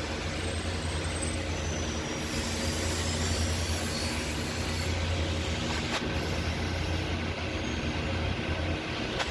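2020 Toyota Yaris engine running steadily at idle, a steady low hum with a noisy mechanical haze and a faint high whine over it; the car has a misfire.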